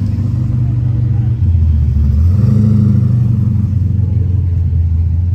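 A nearby engine running, a steady low rumble that rises briefly about two seconds in.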